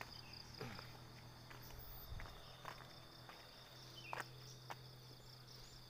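Faint steady high trilling of night insects in the dark garden, with a few soft footsteps and a low steady hum beneath.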